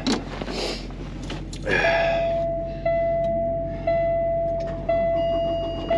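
A truck cab's dashboard warning chime, a steady tone re-struck about once a second, starting about two seconds in over a steady low hum. Before it come some rustling and a few light knocks.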